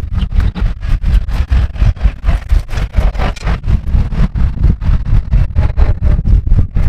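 A small engine running at a steady low speed, its firing beating in rapid, even pulses.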